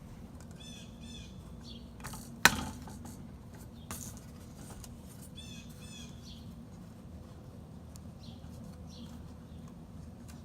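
Small birds chirping in two short bouts of quick, repeated high notes over a steady low hum, with one sharp click about two and a half seconds in and a fainter one a little later.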